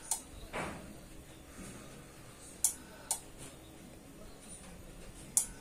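Power amplifier with a switch-mode supply clicking in pairs, the clicks about half a second apart, the pairs repeating about every two and a half seconds, with a short falling rush after the first pair. The supply is cycling on and off, struggling to start through a single 100-watt series light bulb.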